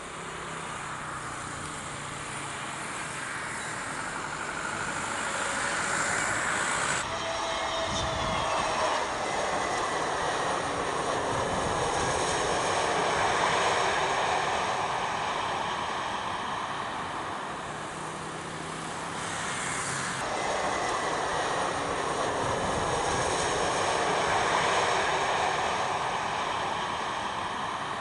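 Jet airliners' turbofan engines at takeoff thrust: a loud, steady roar that swells and fades as each aircraft goes by. The sound changes abruptly about 7 seconds in and again about 20 seconds in, as it jumps between different takeoffs.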